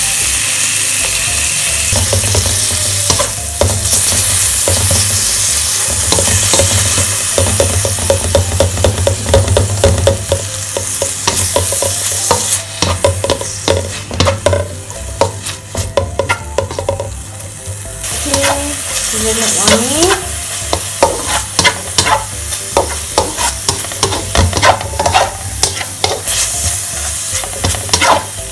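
Minced beef and diced chicken sizzling in a wok in Planta margarine as they are stir-fried, with the spatula scraping and tapping against the wok.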